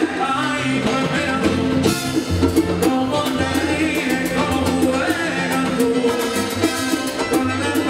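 Live salsa band playing, with brass and congas over a steady beat.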